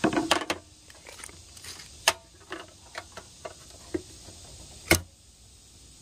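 Scattered light clicks and taps from a tape measure being pulled out and set against a short piece of quarter round on a miter saw table. One sharper click comes about five seconds in.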